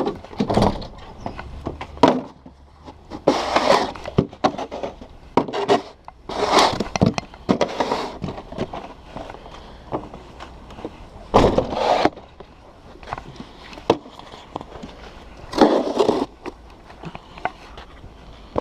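Snow shovel scraping and scooping snow in irregular strokes, one every second or two, with quieter rubbing and crunching between them.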